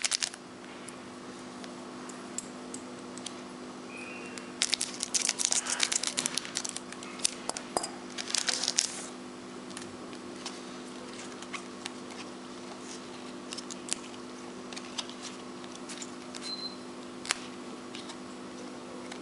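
Paper wrapper of an Upper Deck trading-card pack being torn open and crinkled, in two bursts about five and eight seconds in, with scattered light clicks of the cards being handled.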